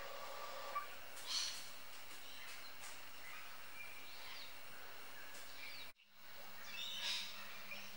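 Bush stone-curlews scolding, with two short harsh calls about a second and a half in and again near the end, and a few faint short rising chirps between them. The sound drops out for a moment about six seconds in.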